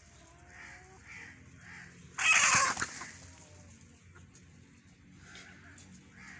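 Chickens clucking softly in short repeated calls, with one loud, harsh squawk lasting under a second about two seconds in.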